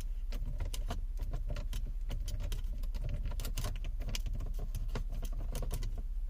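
Quick, irregular small clicks and ticks, several a second, of a screw being driven with a screwdriver into the plastic gearshift console trim, over a steady low hum.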